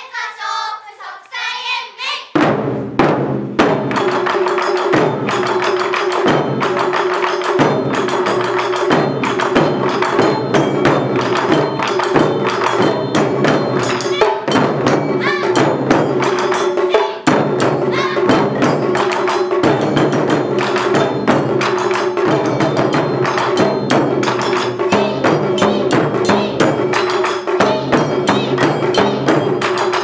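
Japanese taiko ensemble drumming: large barrel drums (nagado-daiko) and small high-pitched shime-daiko struck with wooden sticks in a fast, dense ensemble rhythm. The full drumming starts about two seconds in.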